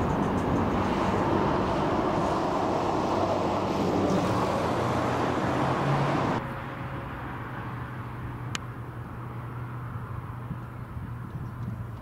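Road traffic noise over a steady low engine hum. About six seconds in, the level drops abruptly to a quieter steady hum, and a single short click follows a couple of seconds later.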